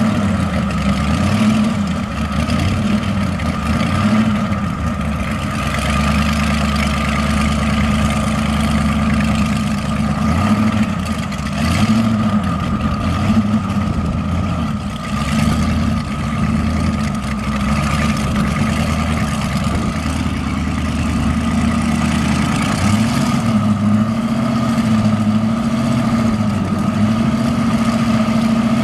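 Small dragster's engine idling steadily, its pitch rising and dipping briefly a few times past the middle.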